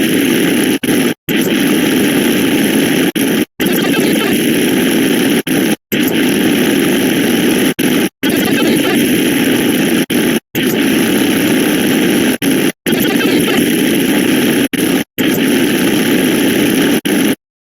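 A loud, harsh din of many edited sound effects piled on top of one another as the count races by. It drops out for an instant about every two seconds, then cuts off just before the end.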